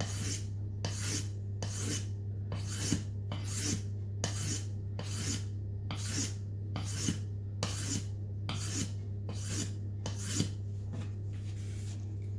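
Scandi-grind blade of a Mora Bushcraft Black knife stroked across a wet whetstone, a smooth rasping scrape repeated evenly about three times every two seconds, the strokes fading near the end. The edge is at the polishing stage, its scratches now fine.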